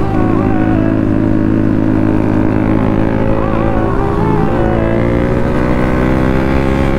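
Motorcycle engine running steadily under way, its pitch climbing gently over the last couple of seconds as it picks up speed.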